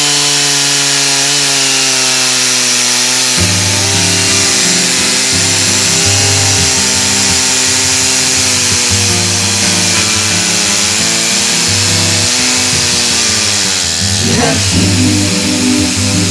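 Chainsaw running steadily while milling a birch log, its pitch sagging slowly under load and dipping sharply then picking up again near the end. Mellow background music with a bass beat comes in about three seconds in.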